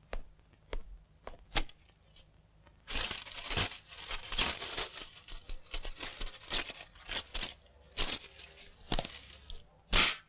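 Aluminium foil being handled to wrap a small package: a few light clicks, then from about three seconds in a long stretch of crinkling and tearing as foil is pulled off the roll and crumpled, with one sharp loud crinkle near the end.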